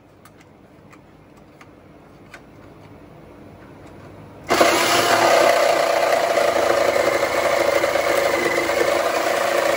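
Handheld electric grinder starting suddenly about four and a half seconds in and running steadily on metal. Before it there are only a few faint handling clicks.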